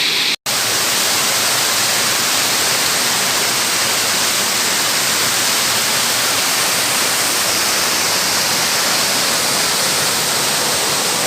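Waterfall: falling water making a steady, loud rushing hiss. It cuts out for an instant about half a second in.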